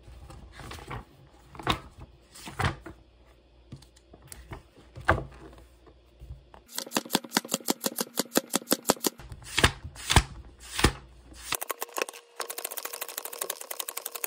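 Paper pages of a thick textbook being turned and flicked by hand. A few separate page turns come first, then a fast run of flicks at about eight a second as many pages are leafed through, a few single turns, and a quick riffle through the pages near the end.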